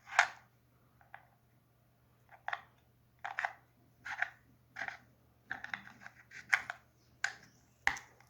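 Handling of a plastic survival-knife sheath and its fire starter: about ten short clicks and scrapes, irregularly spaced about one a second, the loudest right at the start.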